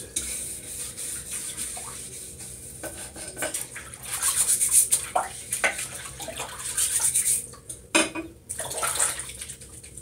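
Hands being washed with soap and water in a small sink: wet rubbing and splashing, coming in uneven waves, with small clicks and knocks against the basin.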